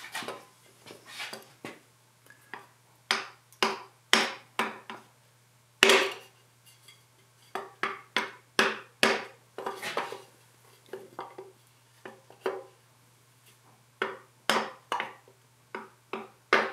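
Hammer tapping on a wooden dowel, driving a piston and connecting rod up out of a cylinder bore of a three-cylinder diesel block: repeated sharp knocks at an uneven pace.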